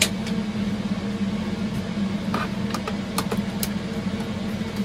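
Steady hum of computer servers running in the workshop. A few short, light clicks come through it as small parts and pliers are handled on the workbench.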